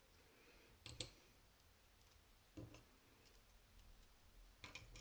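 A few faint, sharp clicks of small metal parts: the discs and spacers of a disc-detainer lock core tapping together as they are handled and set down.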